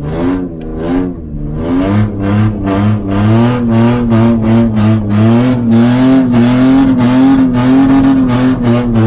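Ford Ranger's 3.0-litre V6 held high in the revs, near redline. Its pitch wavers up and down for the first couple of seconds, then holds high and steady with a fast pulsing.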